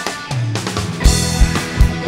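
Live rock band playing: electric guitars with the drum kit coming in about a second in, its bass drum hitting a steady beat.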